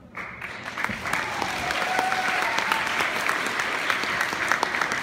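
Audience applauding: the clapping starts suddenly just after the opening and holds steady.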